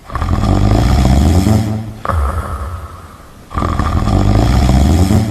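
A man snoring heavily in his sleep: two long, deep snores about three and a half seconds apart, each followed by a shorter, quieter breath.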